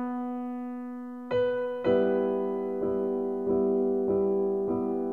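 Background piano music: one held note, then soft chords struck at a slow, even pace.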